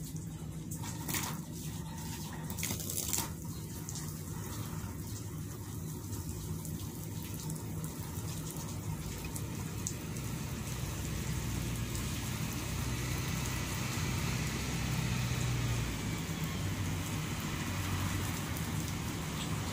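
Water spraying from a hose onto the ground, a steady hiss that grows fuller about midway, over a steady low machine hum.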